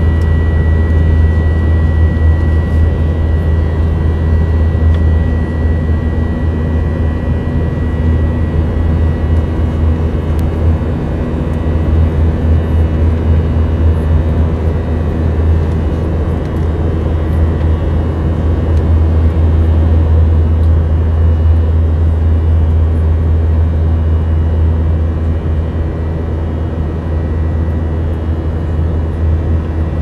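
Jet airliner cabin noise in flight: a steady, loud, deep rumble of engines and airflow. A thin high whine fades out about eight seconds in.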